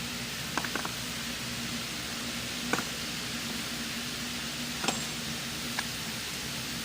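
About five light metallic clinks, spaced over several seconds, from metal parts being handled. Under them runs a steady hiss with a low hum.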